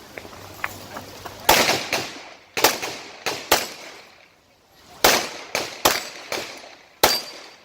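9mm S&W M&P Pro pistol fired in quick strings: about nine sharp shots with a short echo after each, in uneven groups with a pause in the middle.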